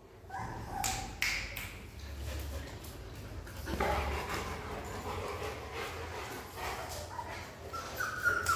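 Puppies whimpering with short, high yips, and a longer high whine near the end.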